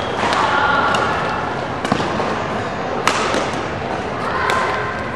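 Badminton rally: a few sharp racket strikes on the shuttlecock, about a second or more apart, over a background murmur of voices.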